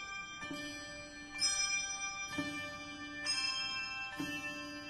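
Soft background music of chiming, bell-like notes. A new note is struck about once a second and each rings on.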